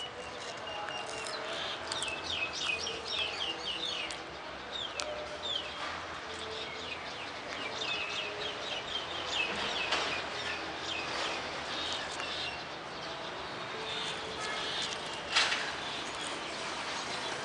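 Small birds chirping in quick twittering runs, with a few sharp crunches of a tortoise biting into a zucchini leaf, the loudest about fifteen seconds in.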